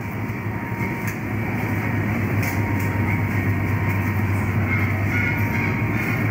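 Steady supermarket background: a low machinery hum under a rushing noise, with a faint steady tone riding on it, growing a little louder over the first couple of seconds.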